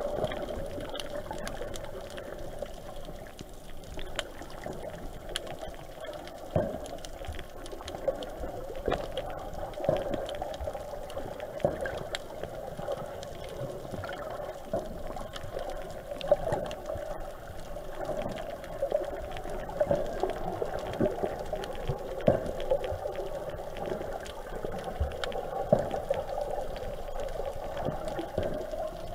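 Underwater ambience heard through a camera's waterproof housing: a steady, muffled water rush with frequent irregular clicks and knocks.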